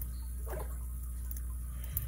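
Faint light clicks and scraping of a lock pick and tension wrench working the pins inside a Master Lock M15 padlock, with one sharp click near the end, over a steady low hum.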